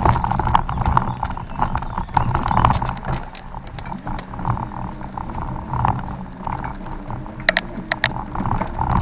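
Mountain bike rolling over a rough, rooty forest trail: irregular rattling and knocking over a steady low rumble, with two short, sharp high sounds near the end.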